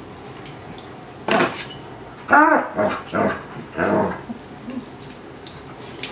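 A dog giving a run of short excited whines and yips, four or five cries that bend up and down in pitch, beginning about a second in, as it begs for a treat.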